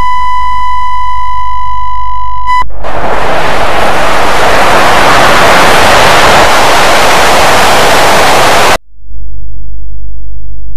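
A steady, high-pitched TV test tone over colour bars cuts off sharply a few seconds in and gives way to a loud hiss of analogue TV static. Near the end the static stops suddenly, leaving a low steady hum, as of a set showing no signal.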